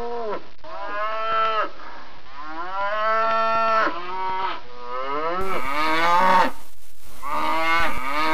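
Cows mooing: a run of about six long moos one after another with short gaps between them, each call's pitch rising and then falling.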